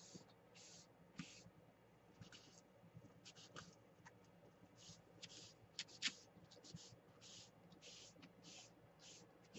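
Faint rubbing of a damp sponge over a sheet of paper: a string of soft, short strokes, about two a second. The transfer is being wetted so it will release from its backing.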